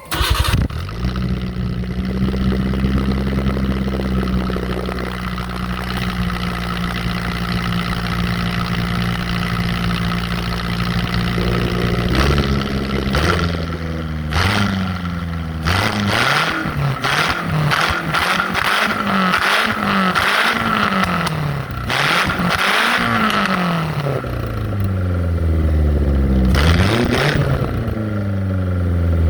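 Car engine breathing through a one-off exhaust with a mini silencer and baffle. It starts up, idles steadily for about twelve seconds, then is revved in a series of quick blips that rise and fall, and settles back to idle near the end.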